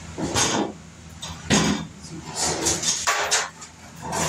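Sheet-metal car parts being handled and moved: five short bursts of knocking and scraping, roughly a second apart, over a steady low hum.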